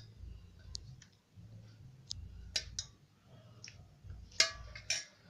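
Steel spoon clinking on a ceramic plate while pea curry is spooned out: a handful of light, irregularly spaced clicks, the sharpest about four and a half seconds in, over a faint low hum.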